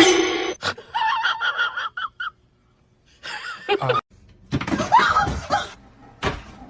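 Human voices laughing in short rhythmic bursts, with a sharp knock at the very start and another near the end.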